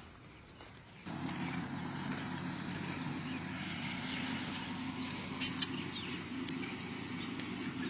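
A steady engine drone that starts suddenly about a second in and holds level, with two short high chirps about halfway through.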